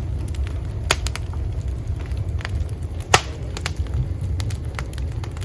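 Campfire burning with irregular crackles and snaps, the loudest pop about three seconds in, over a steady low rumble.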